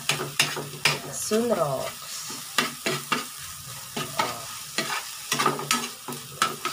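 Metal spatula scraping and clicking against a frying pan in irregular strokes as an egg and sardine mixture is stir-fried, over a soft sizzle of the food in the hot pan.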